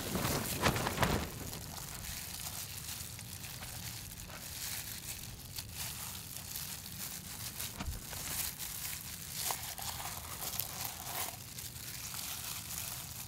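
Crinkling and rustling noise, with a louder burst about a second in, over a steady low rumble.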